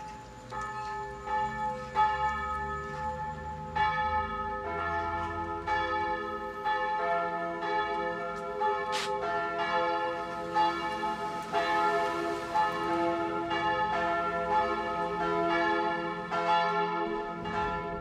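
Church bells ringing: repeated strikes that ring on into a dense, sustained hum, growing fuller about four seconds in. The ringing marks the bride's arrival at the church.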